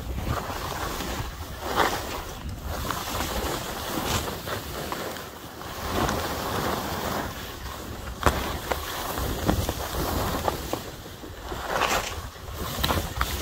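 Skis hissing and scraping through snow in a run of turns, the rush swelling and fading every couple of seconds, with wind buffeting the microphone.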